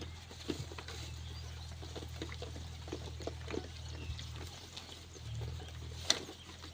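Sheep in a pen: scattered soft knocks and shuffling over a steady low hum.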